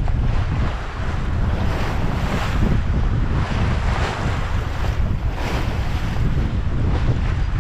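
Wind buffeting the microphone with a heavy low rumble, over the rush and splash of water along the hull of a sailboat under way under sail. The water noise swells and eases every second or so as the boat moves through the waves.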